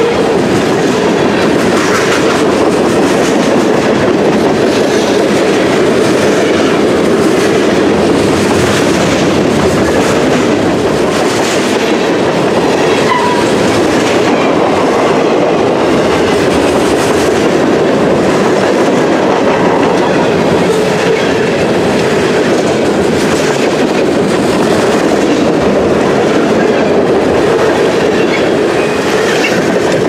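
Freight train cars rolling past at track speed: a loud, steady rumble and rattle of steel wheels on the rails, with the clickety-clack of wheel sets crossing rail joints.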